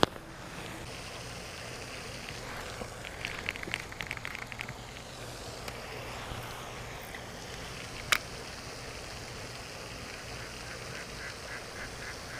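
Ducks quacking in a quick run of calls about three seconds in, and again more faintly near the end. A single sharp click comes about eight seconds in.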